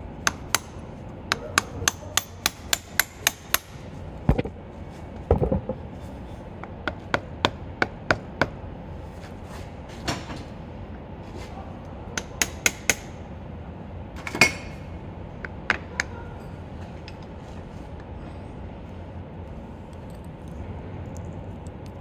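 A flat-bladed steel tool tapping and prying at the tab of a motorcycle brake caliper's pin lock plate, bending the tab up to lock the pin bolts: sharp metal-on-metal clicks in irregular clusters, with duller knocks about four and five seconds in and a louder clack about fourteen seconds in.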